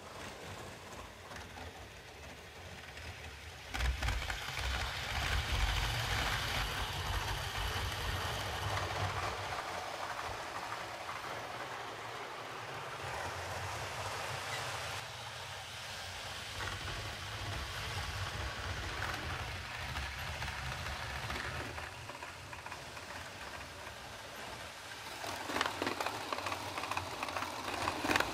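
OO-gauge Hornby Class 37 model locomotive and its Bachmann Mk1 coaches running on the track: a steady hum and hissing rattle of motor and wheels on the rails. It gets suddenly louder about four seconds in and again near the end.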